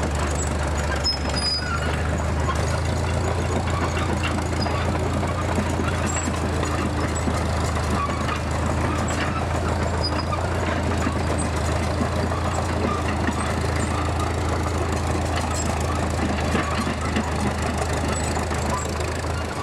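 Small Caterpillar crawler dozer's engine running at a steady speed as the machine crawls along.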